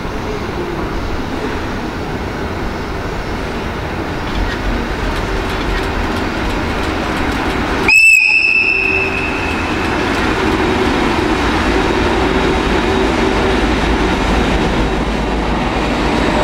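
JR EF81 electric locomotive approaching and rolling past slowly as it arrives, its rumble and wheel noise growing as it nears. About halfway through it gives one short, high-pitched whistle blast, the loudest sound here.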